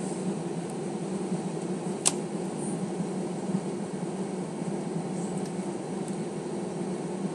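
Steady cabin drone inside an Airbus A320 taxiing on the ground, engines and cabin air running at low power, with one sharp click about two seconds in.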